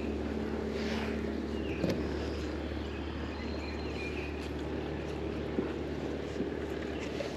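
Steady low hum of the boat's bow-mounted electric trolling motor, with birds chirping faintly a few times.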